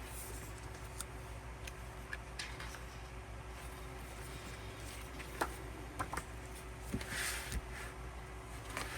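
Light clicks and taps of cards and album inclusions being handled, with a brief soft rustle of paper about seven seconds in, over a faint steady hum.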